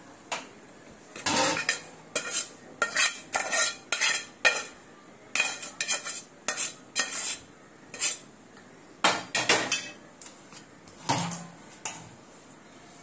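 Metal spatula scraping and clinking against a metal kadhai and a steel plate as thick roasted besan in ghee is scraped out of the pan: many short, irregular scrapes and knocks.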